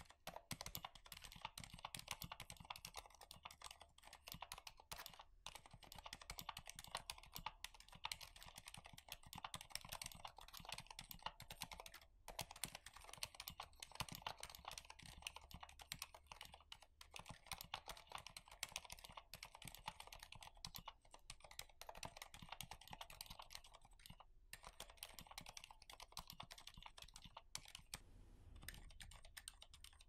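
Typing on a Durgod Hades 68 aluminium 65% mechanical keyboard fitted with Cherry MX Silent Red linear switches, which are dampened, and thin ABS keycaps. The keystrokes come in a soft, fast, steady run and thin out near the end.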